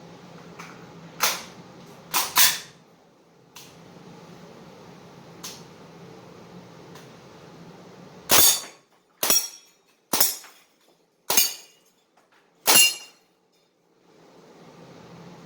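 Crosman DPMS CO2 BB rifle firing five single sharp shots, about a second apart, in the second half. Earlier there are a few sharp clicks or knocks.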